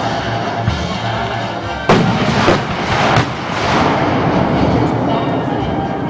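Aerial firework shells bursting overhead: three loud booms close together about two seconds in, followed by a longer noisy rumble, with music playing underneath.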